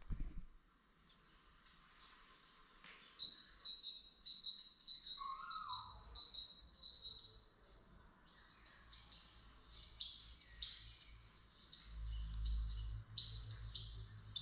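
Birds chirping and singing, a quick run of short high notes one after another. A low rumble joins in from about twelve seconds in.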